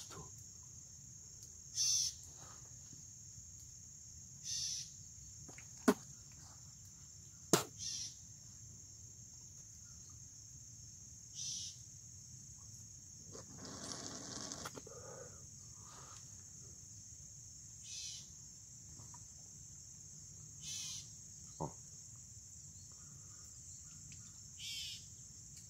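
Steady high trilling of crickets, with louder chirps every few seconds and a few sharp clicks. About halfway through comes a noisy sucking rush lasting a second or two, as air and water are drawn through a clear plastic drain tube to start a siphon.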